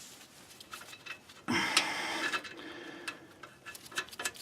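Light metallic clicks and rattles as a nut is fitted onto an axle retainer bolt, with a louder scraping stretch about a second and a half in.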